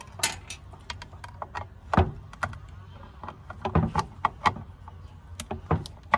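Irregular clicks, taps and knocks of hand tools and parts being handled while working on an LED light fixture, with the loudest knock about two seconds in.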